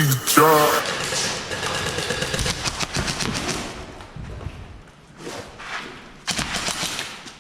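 Airsoft guns firing rapid bursts of shots, with a voice in the first second and a dense burst of shots near the end, cut off abruptly.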